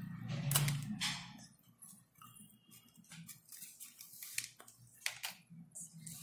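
Small scissors snipping a rolled paper stem, with a handful of short, sharp clicks and cuts and light paper handling. The first second and a half holds a louder hiss with a low hum.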